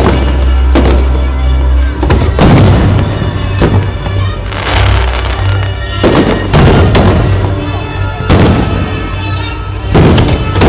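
Aerial fireworks exploding in a run of sharp booms and crackles, about one every second, over music with a steady heavy bass line.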